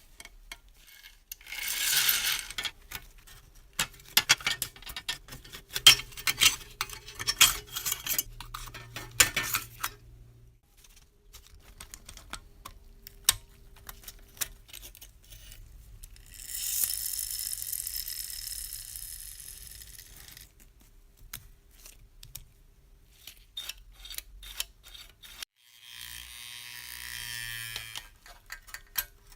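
Small metal parts and hand tools clicking and clinking as a rusted metal model bus is worked on. There are three stretches of hissing: briefly near the start, a longer one about halfway, and another near the end.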